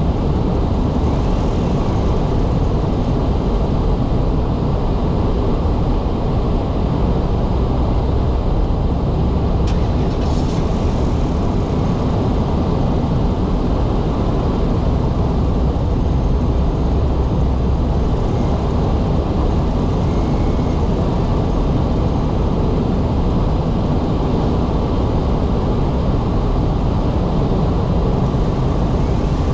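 A car driving on a snowy road: a steady low rumble of tyres and engine that does not change.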